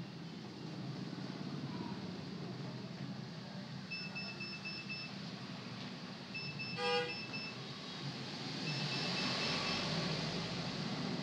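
Steady background hum and hiss, with a short horn toot about seven seconds in and three runs of rapid high-pitched electronic beeps.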